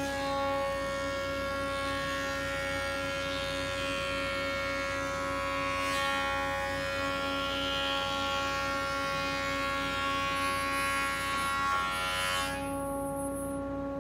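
Fukami NP-16 thickness planer cutting a wooden board, a steady hiss and whine of the cutterhead under load, for about twelve seconds. The cutting noise stops abruptly as the board clears the machine, leaving the motor running free with its steady whine.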